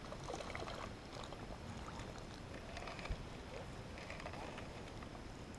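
Faint splashing of water and scattered rustling as a hooked perch is brought in on an ultralight spinning rod, with a single low knock about three seconds in.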